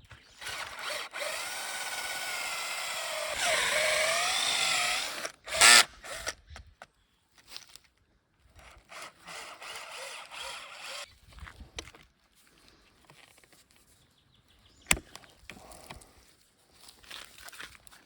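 Stihl MS 881 two-stroke chainsaw running at high revs for about five seconds, its pitch dipping and wavering as it loads, then a short loud burst and the saw stops. After that come only scattered faint knocks and one sharp click.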